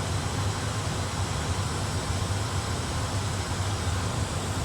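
Steady cockpit background noise of an A320 flight simulator in cruise: an even rushing hiss over a low hum, unchanging throughout.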